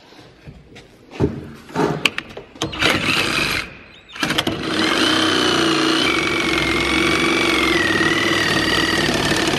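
Cordless power tool triggered in a few short bursts, then run continuously from about four seconds in, its motor whine slowly falling in pitch as the battery runs flat.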